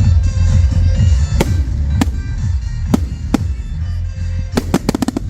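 Fireworks bursting over loud music, with deep booms underneath. Single sharp cracks come every second or so, then a quick rapid volley of cracks near the end.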